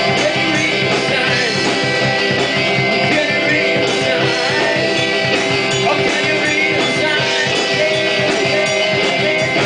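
Rock band playing live in a rehearsal room: electric guitar, bass guitar and drum kit, with a singer on a microphone. The sound is loud and dense throughout.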